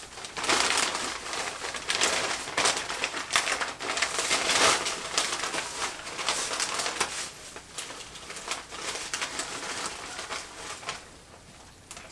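Paper wrapping crinkling and rustling as it is pulled and torn off a wrapped decorative witch figure, in a run of loud bursts that grow quieter near the end.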